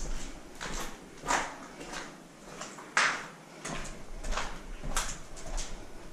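Footsteps scuffing over a rough cellar floor: uneven steps, about one to two a second.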